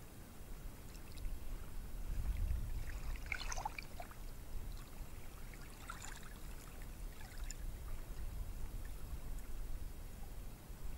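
Ocean surf washing up a beach, with a low wind rumble on the microphone that swells about two seconds in.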